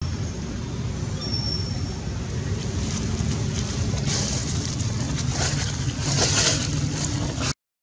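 Steady low rumble of wind buffeting the microphone, with brief bursts of rustling about four seconds in and again near six seconds.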